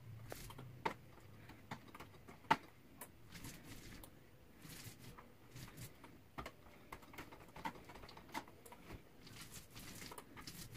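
Paint roller spreading thinned drywall mud onto a wall as a roll-on texture: faint soft swishes with scattered irregular clicks, a sharper click about two and a half seconds in.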